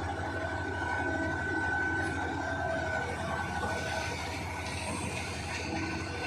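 Heavy diesel mining machinery, an excavator and a dump truck at work, running steadily with a deep engine drone. A thin, steady high whine over it fades out about four seconds in.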